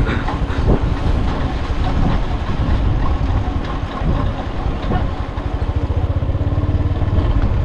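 A small engine running steadily, with a fast, even pulsing and a strong low rumble.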